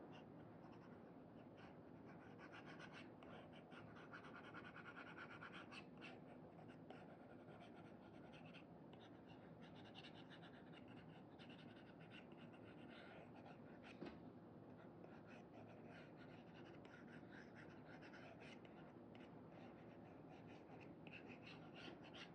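Faint scratching of an Apple Pencil 2 fitted with an Elecom replacement nib, dragged in quick short strokes across a paper-like screen film on an iPad, with one sharper tap about two-thirds of the way through.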